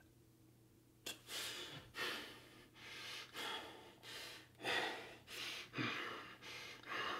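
A man gasping and breathing hard in a rapid series of heavy breaths that starts about a second in, catching his breath after being released from a chokehold.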